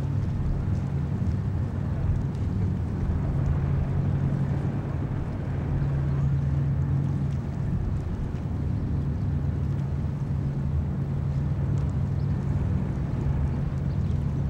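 Motor launch engine running steadily at cruising speed, a low even drone.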